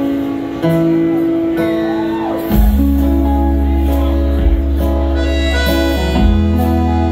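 Live band playing an instrumental passage between sung lines: acoustic and electric guitars, bass, drums and a reedy accordion holding chords. The bass and drums come in heavier about two and a half seconds in.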